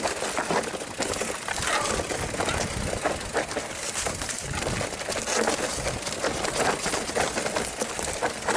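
Mountain bike riding down a rough trail: tyres running over dirt and roots, with constant rattling and clicking from the chain and frame.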